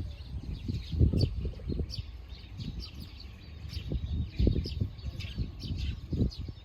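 Small wild songbirds calling, with many short high chirps scattered through. Irregular low rumbling thuds sound beneath them and are the loudest part.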